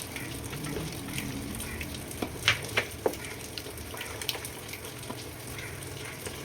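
Chicken and masala frying in a biriyani pot with a steady sizzle, and a few sharp clicks of a stirring spoon against the pot, the clearest about two and a half seconds in.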